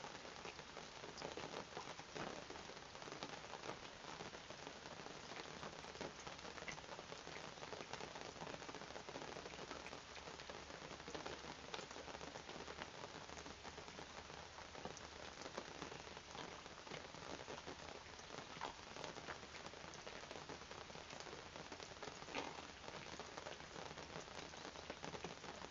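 Steady rain falling, a constant hiss dotted with the small ticks of individual drops hitting surfaces.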